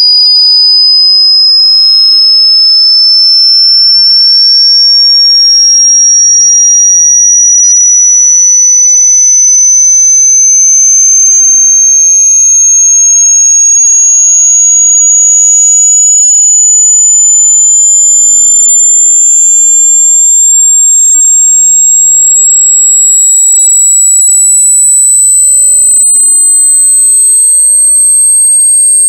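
Synthetic sine-wave sweep test tone for burning in speakers and headphones: a single loud, high, pure whistle that rises slowly and steadily in pitch.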